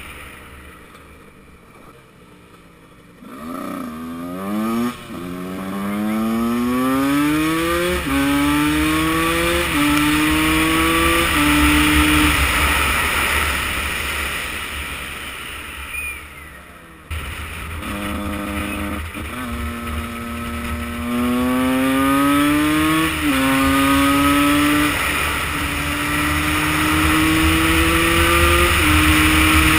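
Husqvarna two-stroke single-cylinder motorcycle engine accelerating hard, its pitch climbing and dropping back again and again as it shifts up through the gears. This happens in two runs: after a quiet start the engine comes in about three seconds in, fades, cuts off abruptly about 17 s in, and then a second run of upshifts follows.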